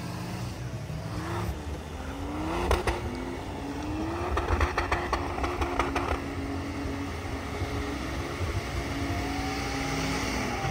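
Off-road 4x4 engines revving, their pitch rising and falling, as the trucks push through mud. A run of sharp clicks comes about three seconds in and again around five seconds in.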